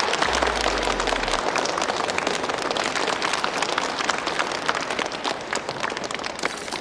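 Audience applauding: many hands clapping in a dense, steady patter that eases off a little toward the end.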